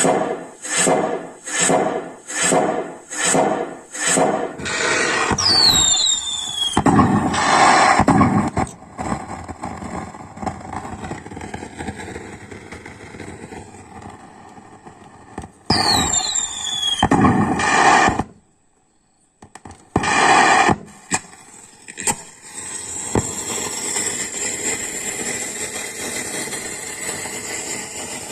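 Firecracker and firework sound effects: a regular string of bangs about two a second, then whistling rockets falling in pitch, each ending in loud bursts. This happens twice, and a crackling hiss follows.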